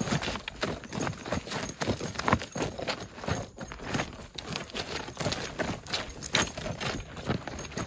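Irregular clicks, knocks and rustles of a vaqueiro's leather gear (gibão jacket and riding kit) being handled and adjusted next to a standing saddled horse.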